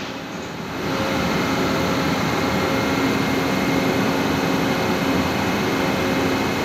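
Standing CSR metro train's motor and onboard equipment running with a steady, very noisy hum: an even rush with a faint low tone, a little quieter for the first second and then holding steady.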